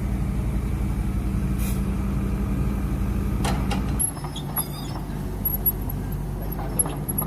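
Heavy machine's engine running steadily. About four seconds in, the sound changes abruptly to a lower, rougher engine note, with a few sharp clicks.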